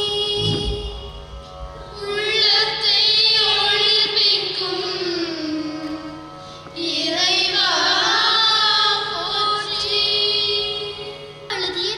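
Music: a high voice sings long, wavering Carnatic-style phrases over a steady held accompaniment. A new phrase starts about two seconds in and another about seven seconds in.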